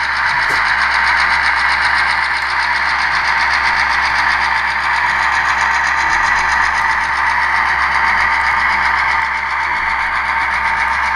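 HO scale Norfolk Southern diesel locomotive model running slowly while pulling a string of freight cars, giving a steady diesel engine running sound from its small onboard speaker.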